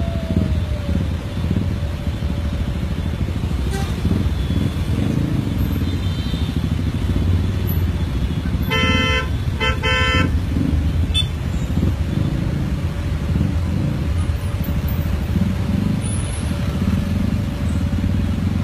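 Low, steady rumble of idling road traffic engines. About nine seconds in, a vehicle horn gives two short honks, each about half a second, one right after the other.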